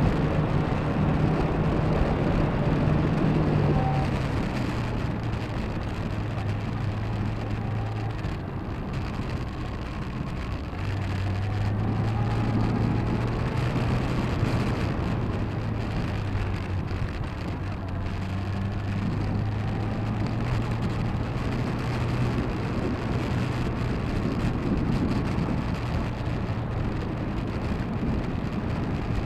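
Motorbike engine running while riding along, a low hum that drops in pitch about four seconds in and then holds roughly steady, under a constant hiss of wind and road noise.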